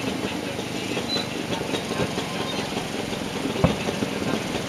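Distant fireworks bursting: one sharp, low boom about three and a half seconds in, over a steady rumble of background noise.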